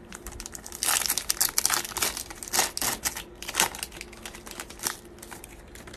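Foil trading-card pack wrapper crinkling as it is torn open and handled. It is a dense rustling crackle that starts about a second in and thins out near the end.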